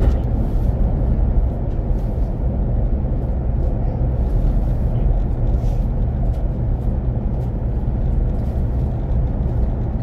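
Train running: a steady low rumble.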